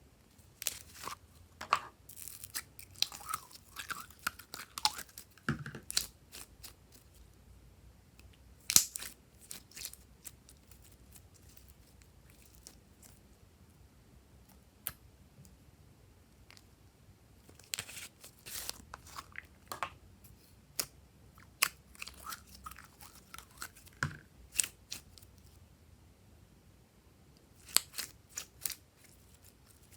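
Glossy slime being handled and mixed by hand: sticky crackling and popping clicks in bursts, with quiet pauses between and one sharp loud snap.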